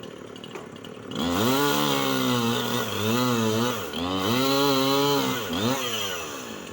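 Chainsaw revving up about a second in and running loud, its pitch rising and dipping several times as the throttle and cutting load change, then easing off near the end.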